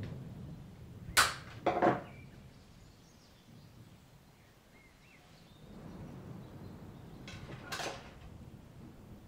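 Handling noise from hands working on a potted bonsai tree. Two sharp snaps come a little over a second in, close together, and a third comes near the end, with low rustling in between.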